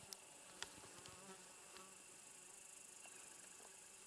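Faint, steady high-pitched chirring of insects, with two short soft clicks in the first second.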